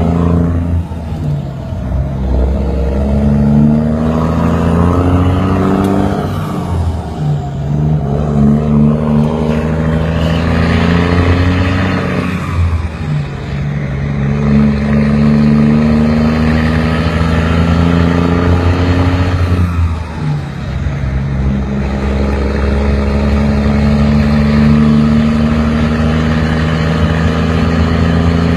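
A vehicle engine running hard and accelerating, its pitch rising slowly, then dropping sharply at several gear changes.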